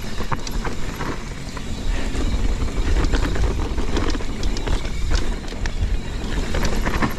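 Mountain bike descending a rough bikepark trail at speed: wind rushing over the microphone, tyres rolling on dirt, and the bike rattling with frequent clicks and knocks over bumps.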